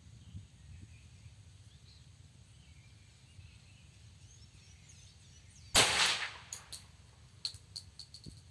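A single shot from a traumatic pistol firing a gunpowder-driven rubber ball, about six seconds in, with a short echo after it. A few light clicks follow.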